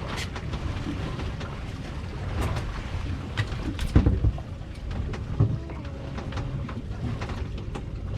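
Wind and water noise on a small fishing boat, a steady low rumble and hiss, with scattered knocks and thumps on the boat, the loudest about four seconds in.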